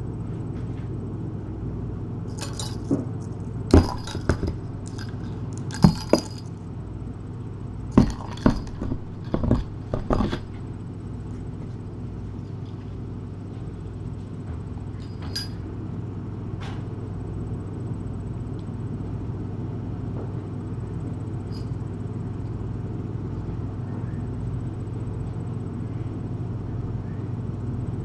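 A kitten at a food bowl, making a run of sharp clinks and taps against the dish, clustered in the first ten seconds with a few fainter ones later. A steady low hum lies underneath.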